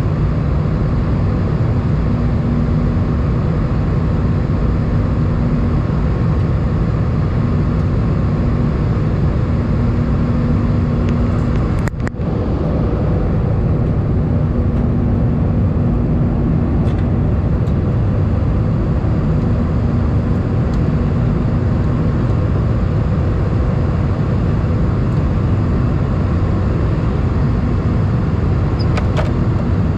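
Airbus A319 cabin noise in flight: the engines and airflow heard through the fuselage as a loud, steady low rumble, with a faint hum that comes and goes. The sound dips briefly once about twelve seconds in.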